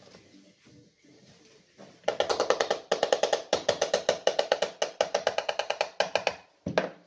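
Ratchet tool clicking fast and evenly, about ten clicks a second for some four seconds, while a fastener on the electric chainsaw's sprocket end is turned. A single loud knock comes near the end.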